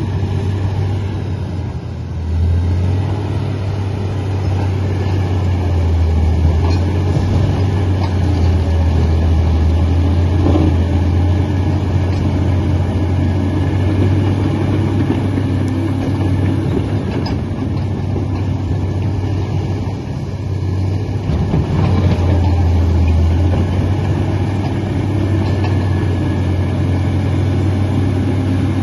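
Komatsu D85 bulldozer's diesel engine running with a steady low drone, easing off briefly about two seconds in and again about two-thirds of the way through before picking back up.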